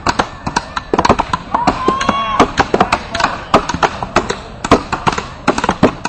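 Axes chopping into wood in a felling event: sharp strikes several times a second in an uneven pattern, with voices calling out over them.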